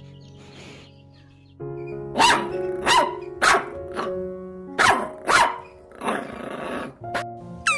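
A dog barking, about five sharp barks starting about two seconds in, over steady background music.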